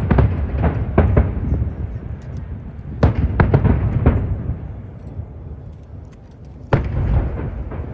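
Aerial fireworks shells bursting overhead, several sharp bangs each trailing into a low rumble. The bangs come in clusters at the start, about a second in, from three to four seconds in, and again near the end.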